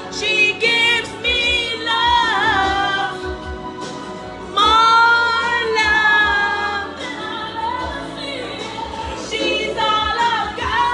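A woman singing, with long sliding held notes; the loudest is a held note about halfway through.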